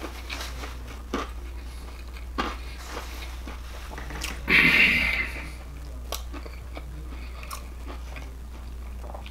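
Close-up chewing of a buttermilk biscuit sandwich filled with fried shrimp: wet mouth sounds with small crunches and clicks, and one louder rush of noise about halfway through. A steady low hum sits underneath.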